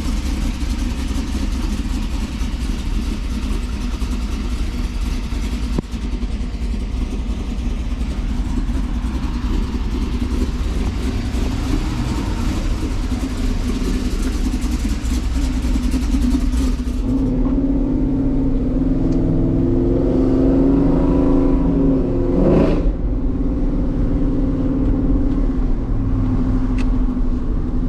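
Cammed LS V8 of a GMC Sierra pickup running, under a rushing noise for most of the first 17 seconds. Then the rush drops away and the engine note comes through clearly, rising in pitch as the truck pulls. There is one sharp knock a few seconds before the end.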